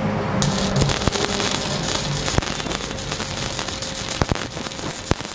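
Gasless flux-cored MIG welding arc from an ESAB HandyArc MIG 200i, set for 3 mm steel, struck about half a second in and then crackling steadily with frequent sharp spatter pops as a bead is laid on steel bar and angle.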